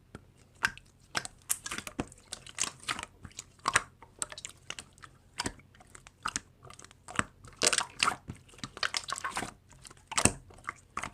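Slime being squeezed and worked by hand, giving irregular crunchy clicks and crackles.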